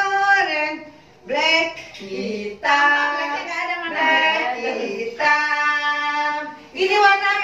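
A woman and young children singing a classroom song together, in sung phrases with a long held note towards the end.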